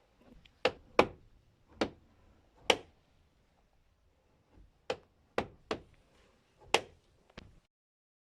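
Opel Vectra C door check (door limiter) clicking sharply as the door is swung: four clicks, a short pause, then five more. The clicking is the door-check fault to be repaired.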